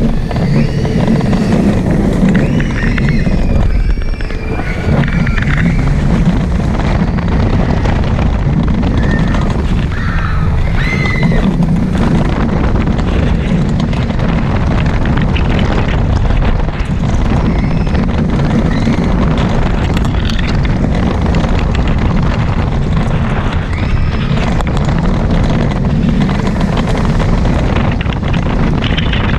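Roller coaster ride heard from a camera on the train: wind rushing over the microphone and the train's wheels rumbling along the steel track at speed, steady throughout. Riders' high, wavering screams break through now and then, most in the first dozen seconds.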